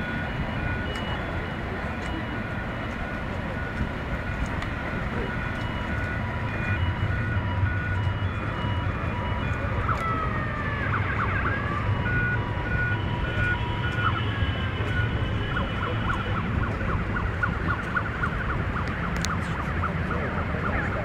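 Emergency vehicle siren sounding in repeating dashed tones, with rising and falling glides about halfway through. Under it runs a steady low rumble of wind and outdoor noise.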